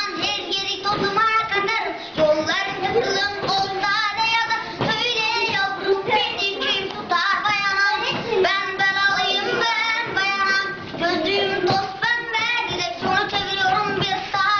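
A young female voice singing a song with music behind it.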